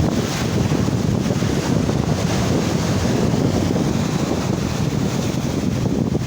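Strong wind buffeting the microphone over the steady wash of waves.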